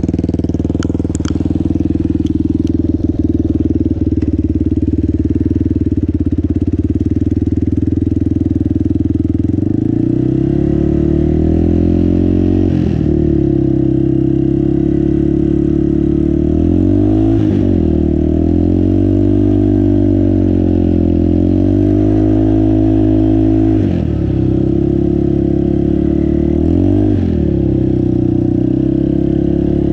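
Yamaha Warrior 350 ATV's single-cylinder four-stroke engine running at a steady pitch for about ten seconds, then revving up and down as the quad pulls through deep snow. The revs drop sharply four times and climb again.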